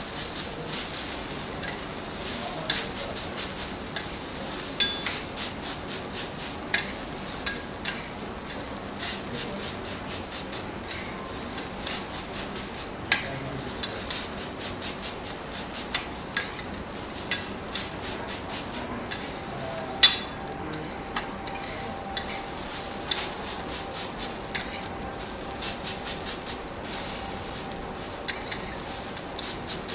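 Two steel spatulas chopping, scraping and turning fried rice on a hot teppanyaki griddle, with frequent sharp clicks of metal striking the plate over a steady sizzle. The loudest clack comes about two-thirds of the way through.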